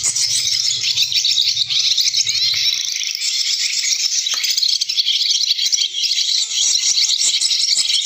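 Recorded swallow twittering, the night-roost call used to lure swallows into nets, played continuously through a small battery-powered electronic bird caller with twin tweeter speakers. A low hum stops about three seconds in, and a few handling knocks come as the speaker is moved.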